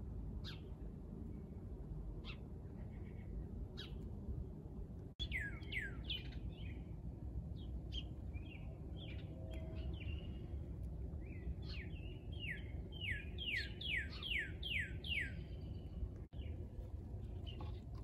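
Songbirds calling and singing over a low steady background hum: a few scattered short chirps, then repeated quick whistled notes that each slide down in pitch, in short runs, with the longest and loudest run of about eight notes past the middle.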